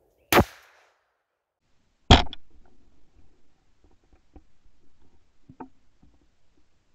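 Shotgun fired twice, about two seconds apart; the second bang is the louder and dies away over most of a second. Faint scattered knocks and clicks follow.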